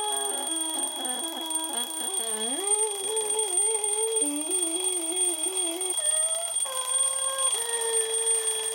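Alarm clock going off with a melodic electronic alarm tune: short pitched notes that step up and down, over a steady high whine.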